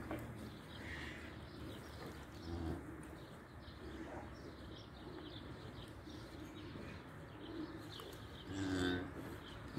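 Holstein Friesian cow making soft, low calls to her newborn calf as she licks it, with a louder short call about a second before the end.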